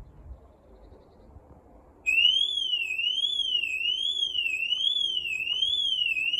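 Ring Alarm Outdoor Siren sounding its test alarm at the loudest volume setting: a loud electronic tone that starts suddenly about two seconds in and warbles up and down, a little more than once a second.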